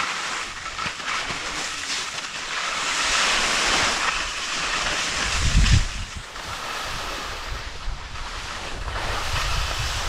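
Skis sliding and scraping over packed snow, a steady hiss that swells a couple of seconds in, with wind buffeting the microphone in low gusts, strongest about six seconds in and again near the end.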